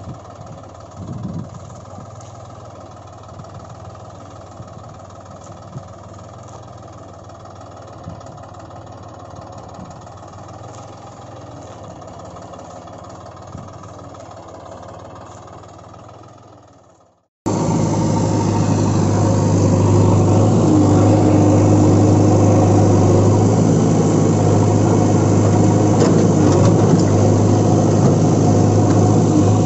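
Steady engine running sound. It fades out about seventeen seconds in, then after a sudden cut runs on much louder and steadier.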